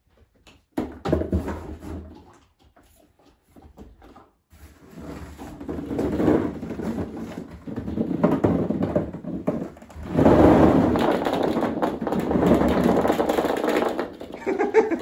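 A box of hollow plastic ball-pit balls tipped out onto a carpeted floor: the balls rattle and shift in the cardboard box, then pour out in a loud rush of clattering and bouncing from about ten seconds in. A thump about a second in.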